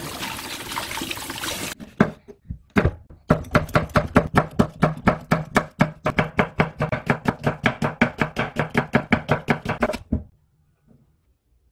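Tap water running into a steel bowl in the sink for the first couple of seconds. Then a chef's knife chopping Cheongyang chili peppers and green onion on a wooden cutting board: a few single cuts, then fast, even chopping at about five strokes a second that stops suddenly about ten seconds in.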